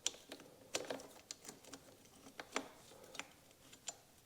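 Faint, irregular small clicks and taps, about ten in four seconds, of hands working metal disc-brake pads and caliper parts while fitting new pads.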